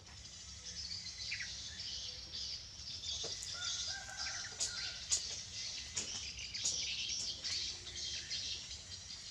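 Small birds chirping and twittering, many short high calls overlapping, busier through the middle.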